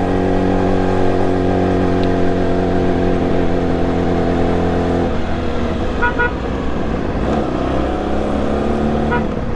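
Yamaha YZF-R6 inline-four engine running steadily at low speed in traffic. About five seconds in the note breaks up and roughens as the throttle eases. A few short horn beeps sound about six seconds in.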